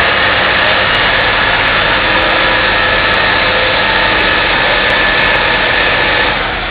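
Pulling tractor's engine running loud and steady under load, easing off about six seconds in.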